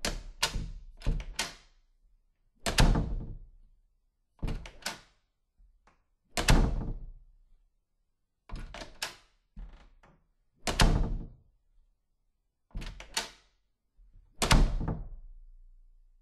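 A door clicking several times at its latch, then shutting with a heavy thud that rings out briefly. The sequence repeats four times.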